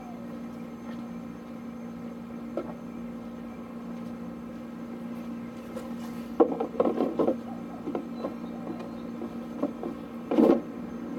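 Hollow plastic car ramps knocking and scraping as they are lifted and set down on one another: a quick cluster of knocks about six seconds in and a louder knock near the end, over a steady low hum.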